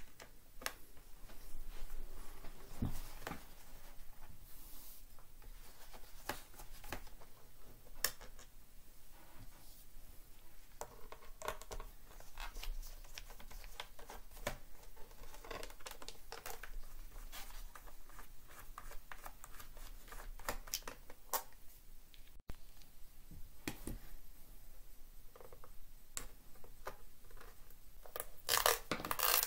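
Hands and small tools working on the underside of an HP 15 laptop's plastic case: irregular small clicks, taps and scrapes, with a louder cluster of scraping near the end.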